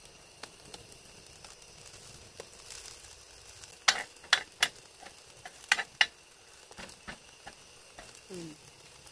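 Fried rice sizzling quietly in a shallow pan on a gas stove as a ladle scoops and presses it. The ladle clicks sharply against the pan about five times, roughly halfway through.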